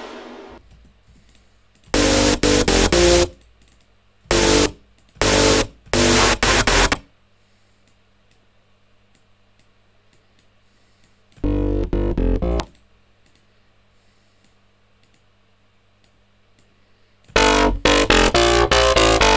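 Serum software-synth bass patch auditioned in five short bursts of notes, deep and buzzy, with a faint hum in the gaps between them. About seventeen seconds in, the bass loop starts playing continuously with a steady rhythm.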